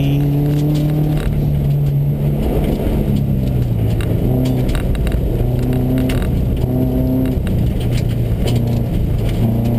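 Subaru rally car's flat-four engine running hard inside the cabin, its note dipping and picking up again a few times as the driver works the throttle and gears. Under it is a steady rush of tyres on gravel, with scattered clicks of stones striking the car.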